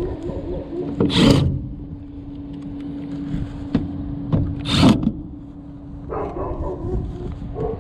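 Two short rasping scrapes, about four seconds apart, over a steady low hum.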